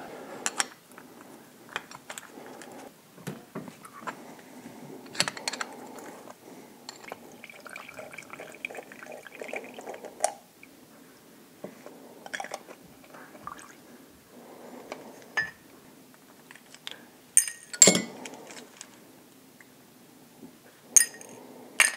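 Fuel trickling and dripping from a small-engine carburetor's float bowl into a plastic tub as the bowl is drained, among light clicks and taps of the carburetor parts being handled. Sharper knocks come a few times near the end.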